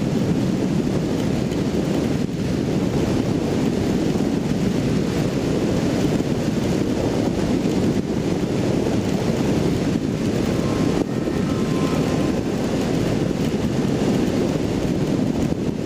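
Steady wind rush over the microphone of a motorcycle riding at highway speed in heavy rain, with the running bike blended underneath.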